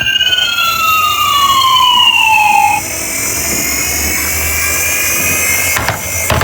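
Emergency-vehicle siren that starts suddenly. Its pitch falls steadily over about three seconds, then a quieter steady tone carries on, with a few sharp clicks near the end.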